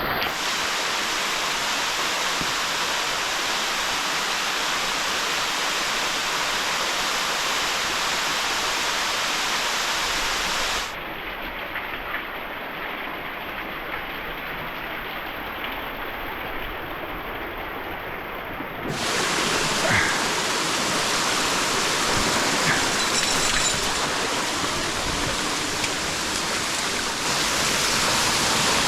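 Waterfall water pouring and splashing in a steady rush, turning quieter and duller for several seconds in the middle before coming back louder.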